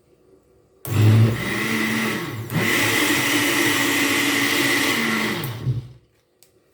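Blender motor running on beetroot and apple juice, giving it a second blend to make it smooth. It starts about a second in, stops briefly about two and a half seconds in, then runs steadily again and winds down near the end.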